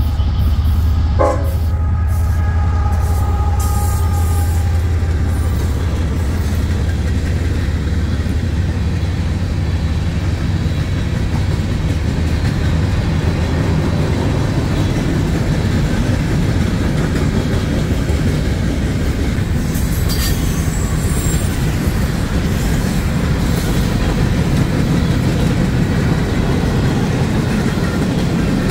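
Freight train passing close by: the diesel locomotives' deep engine rumble at the start gives way to the steady rumble and clatter of loaded and empty freight cars rolling past, with a brief high wheel screech about two-thirds of the way through.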